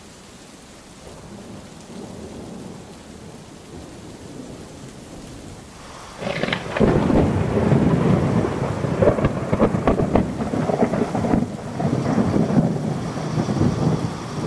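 Thunderstorm: rain with a low rumble of distant thunder, then a loud, crackling thunderclap about six seconds in that keeps rolling.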